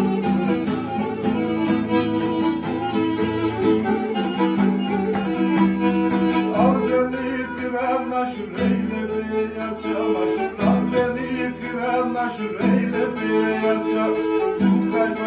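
Black Sea kemençe bowed over a strummed acoustic guitar, playing a horon tune, with a man's singing voice joining about halfway through.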